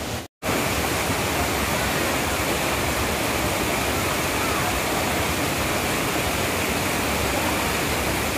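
Loud, steady rushing noise, even from low to high pitch, with no rhythm or tone. It follows a brief cut to silence just at the start.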